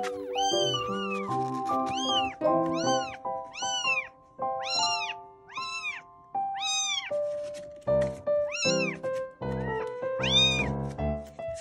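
A young kitten meowing over and over, high-pitched calls about one a second, each rising then falling in pitch, with a short pause past the middle. Background music plays under the calls.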